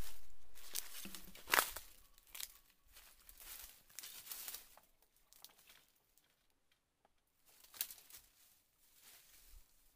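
Footsteps crunching and rustling through dry bamboo leaf litter, loudest in the first two seconds, with a sharp click about a second and a half in and fainter rustles later as the leaves are disturbed.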